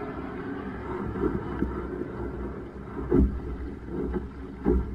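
Wind rumble on the microphone and water rushing past the hull of a Laser dinghy under sail, with two sharp knocks, one about three seconds in and one near the end.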